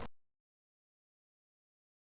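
Silence: the last of a spoken word fades out in the first moment, then nothing at all.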